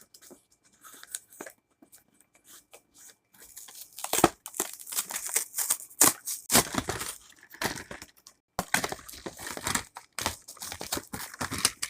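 Toy packaging being torn open and crinkled by hand in irregular rustling bursts: faint for the first few seconds, then louder and busier from about four seconds in.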